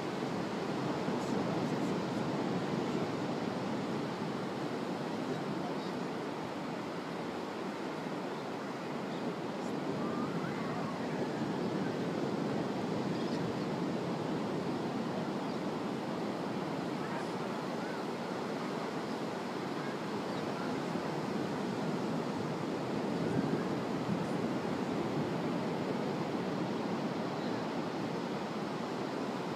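Ocean surf breaking on a sandy beach: a steady rushing wash of waves that swells and eases slowly.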